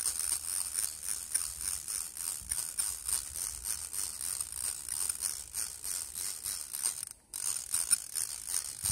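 Mr. Crappie fly-style fishing reel ticking and rattling in a steady run of clicks as its handle is cranked to wind line in on a slow 1:1 gear-ratio retrieve. The clicking breaks off briefly about seven seconds in.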